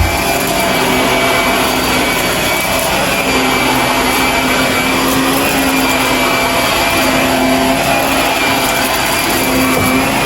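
Shark vacuum cleaner running steadily at full suction, a constant motor hum and whine. A short knock right at the start.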